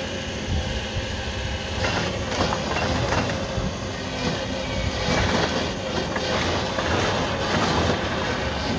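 John Deere forest harvester working: its engine running steadily, with scattered metallic clanks and rattles from the machine.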